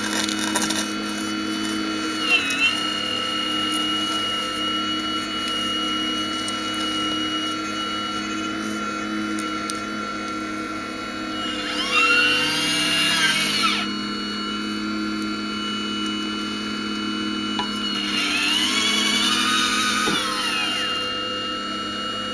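Radio-controlled Hitachi 870 model excavator's motors whining steadily. Twice in the second half the whine gets louder and its pitch rises and falls back as the arm and bucket move.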